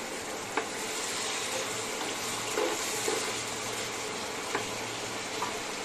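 Dried beef and onion curry sizzling steadily in a hot frying pan while a spatula stirs it, with a few sharp clicks of the spatula against the pan.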